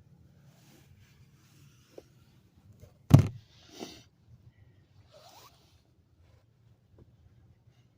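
Hand work on a car's seatbelt hardware: one sharp knock about three seconds in, followed by two short scraping rustles and a few faint clicks.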